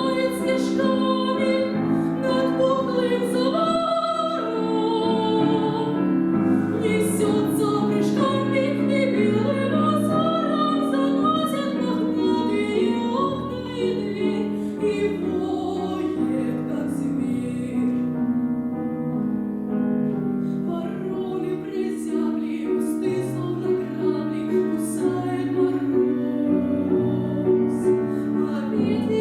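A female voice singing a classical song in a trained, operatic style with vibrato, accompanied by piano.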